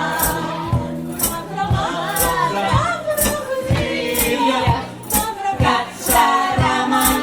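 Vocal trio singing a jazz-pop song in close harmony, accompanied by bass and jingling hand percussion that marks a steady beat.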